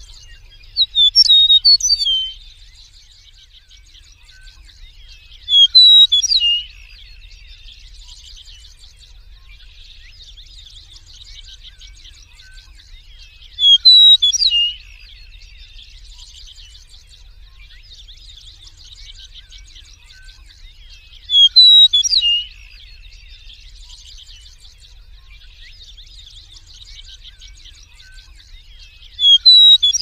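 Eastern meadowlark singing its song of clear, slurred whistles, five times at about eight-second intervals. Each phrase lasts about a second. A fainter, steady high buzzing trill runs in the background between the songs.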